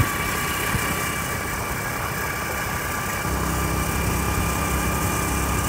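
Motorcycle engine running while riding, with wind noise rushing over the microphone. About three seconds in, a steadier, deeper engine hum comes to the fore.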